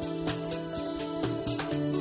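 Instrumental background music: held, chord-like tones over a steady beat.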